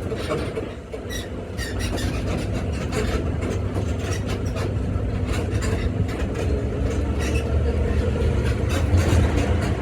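Zoomobile tour tram driving: a steady engine hum and rumble with frequent clicks and rattles from the moving carriage.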